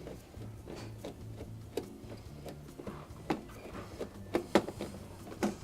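Irregular clicks and knocks of parts and tools being handled while a dishwasher is reassembled, with a few sharper knocks in the second half.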